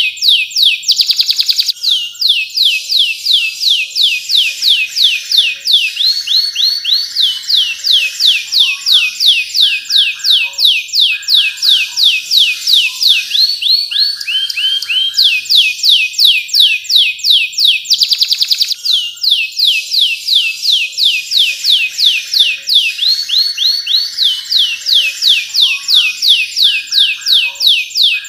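Domestic canary singing a long, fast song: runs of rapidly repeated downward-slurred whistled notes, several a second, broken by short buzzy rolls and trills.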